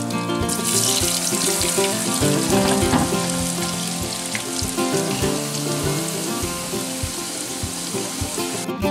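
Sliced onions sizzling in a skillet of hot leftover pork-chop frying oil, the sizzle strongest in the first few seconds, over background music with plucked strings.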